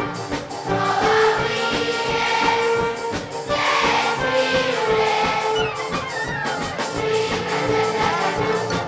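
Large children's choir singing a song together, with instrumental band accompaniment.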